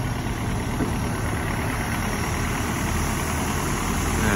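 Diesel engine of a Hino six-wheel dump truck running steadily at a low speed while its tipper bed is raised to dump soil.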